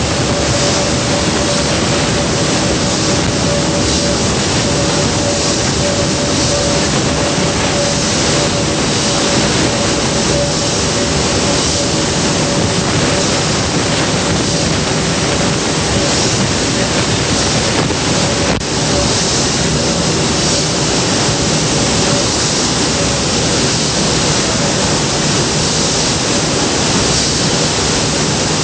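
Steady, loud din of giant stationary gas engines running in an engine house, an even roar with a steady hum running through it.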